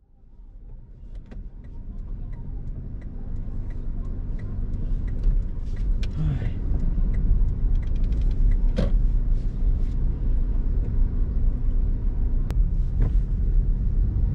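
Car driving, with a steady low engine and road rumble that fades in at the start and slowly grows louder. A light regular tick sounds about three times every two seconds.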